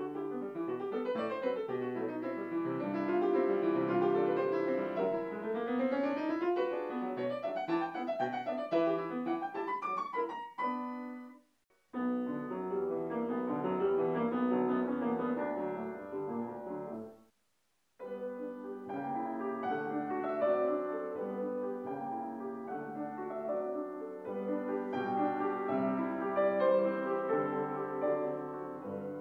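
Grand piano being played in three excerpts, on different pianos in different rooms. Each excerpt cuts off abruptly, about 11 seconds and about 17 seconds in.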